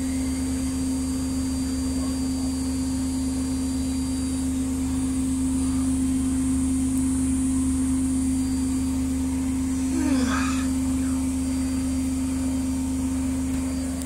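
Privileg Dynamic 7660 front-loading washing machine on its spin cycle: the drum spins at a steady speed, its motor giving a steady whine over a low hum. A brief falling sound comes about ten seconds in.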